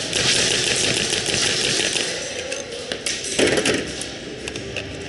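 Airsoft gunfire in a large indoor arena: dense, rapid clicking and clattering of guns firing and BBs striking the wooden barricades, a little louder about three seconds in.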